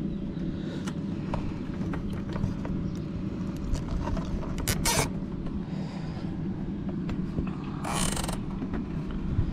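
Nylon cable tie being pulled tight around a cable bundle: a short ratcheting zip about five seconds in and a longer one about eight seconds in, among small handling clicks over a steady low rumble.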